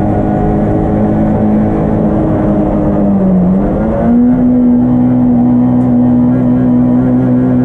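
Yugo race car's engine heard from inside the stripped cabin, running hard at a steady note. About three seconds in, the note dips and then climbs to a higher steady pitch during a gear change.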